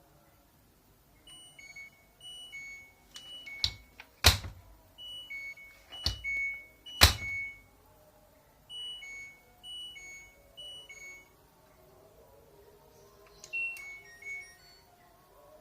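Electronic beep tunes from an LG front-loading washing machine's control panel: short melodic phrases of beeps played three times, with a brief fourth run near the end. A few sharp clacks fall between the first phrases; the loudest come about four and seven seconds in.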